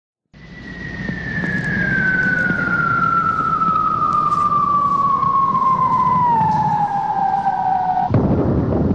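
A single high whistle glides slowly and steadily down in pitch for about eight seconds, like a falling-bomb whistle effect. Near the end it is cut off by a sudden burst of rumbling noise.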